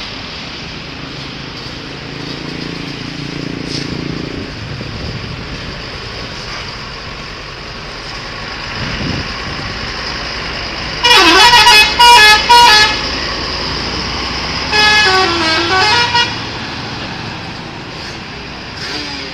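Telolet horn, the multi-note musical horn of Indonesian buses, playing two short tunes: first three quick blasts of changing notes about halfway through, then a couple of seconds later a phrase whose pitch falls and rises again. Steady traffic noise runs underneath.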